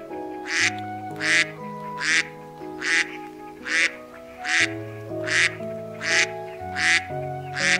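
A duck quacking over and over, about ten short quacks evenly spaced a little under a second apart, over background music with held chords.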